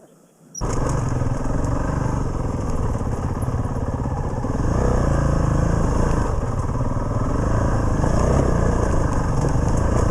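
Dual-sport motorcycle engine running while riding, loud and steady, mixed with rushing noise; it cuts in abruptly about half a second in.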